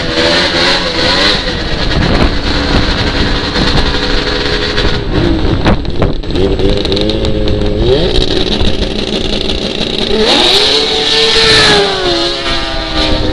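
Race snowmobile engines revving and accelerating hard, with several rising sweeps in pitch; the strongest comes in the last few seconds as two sleds run down the track.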